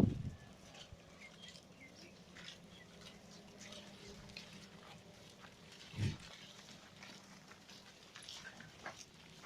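Sirohi goats making short, low calls, one right at the start and another about six seconds in, with faint rustling and clicking between.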